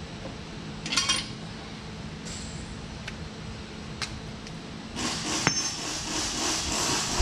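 Small broken metal parts from a combine's rotor drive clink together in the hands about a second in, followed by a few light ticks. From about five seconds in comes a scraping, rattling clatter as parts are handled and set down on a concrete floor scattered with straw.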